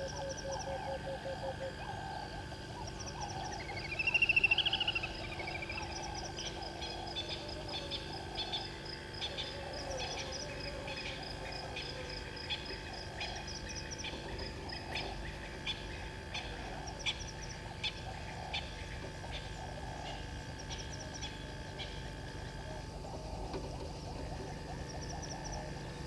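Morning bush chorus of birds and frogs calling over a steady high insect drone. A fast rattling series of notes comes in the first two seconds, and a louder rising-and-falling whistled call about four seconds in.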